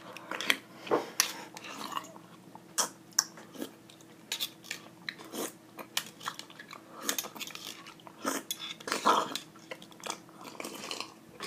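Close-up chewing of soft, wet canned peach slices: irregular mouth smacks and small clicks.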